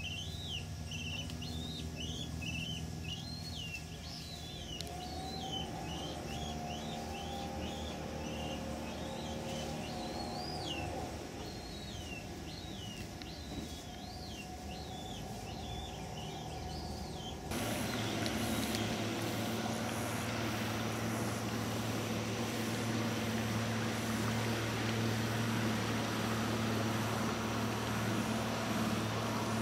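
A bird singing quick, repeated swooping chirps, about two a second, over a low motor hum. About seventeen seconds in, the sound cuts abruptly to a louder, steady engine drone with hiss.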